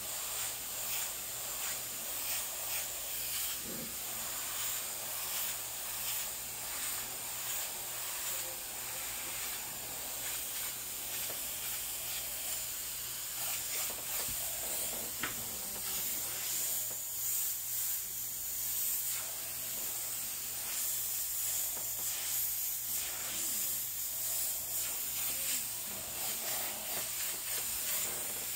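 Airbrush spraying paint: a steady, high hiss of air that swells and dips slightly.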